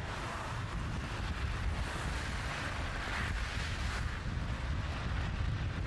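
Steady low rumble with a hiss over it that swells slightly around the middle, with no distinct events.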